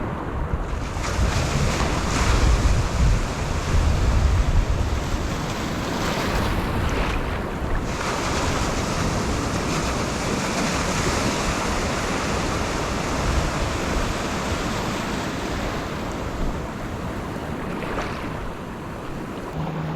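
Ocean surf washing onto the beach, with wind buffeting the microphone in gusts of low rumble during the first few seconds.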